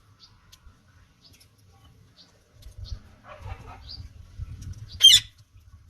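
Parrot giving short, high chirps every half second or so, then one loud, harsh squawk about five seconds in.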